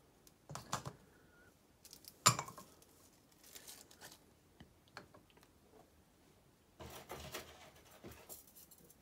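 New aluminium pistons handled and set down on a workbench: scattered light clicks and knocks, the sharpest about two seconds in, and a short clatter near the end.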